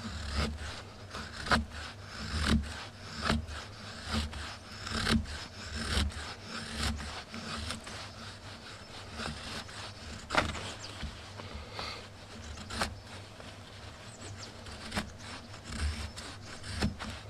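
Knife blade shaving thin curls down a branch to make feather sticks: repeated scraping strokes, about one to two a second and uneven, stronger in the first half. The branch is rain-dampened, its wet outside cut away so the dry inner wood is shaved.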